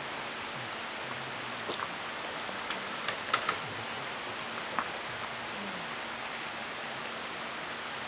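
Steady, even background hiss with a few short sharp clicks, a small cluster of them about three seconds in. The owl is not calling.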